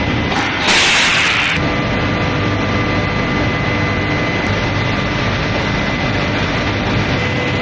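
Heat-treatment furnace line machinery running with a steady noisy drone and several steady hum tones. A loud burst of hiss starts about half a second in and lasts about a second.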